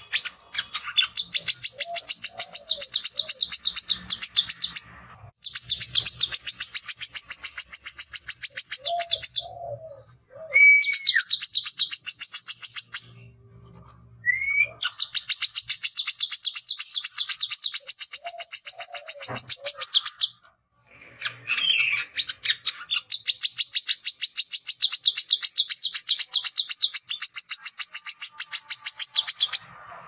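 Male brown-throated sunbird singing its rapid chattering challenge song, a territorial call to a rival. It is a fast stream of repeated high notes, in long runs of several seconds broken by short pauses, with a few lower whistles and sliding notes between the runs.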